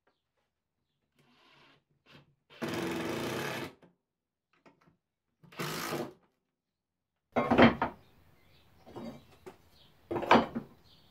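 Makita cordless impact driver driving screws into pine: a burst of about a second, then a shorter half-second burst. After that come two louder clunks of wood and tools being handled, about three seconds apart.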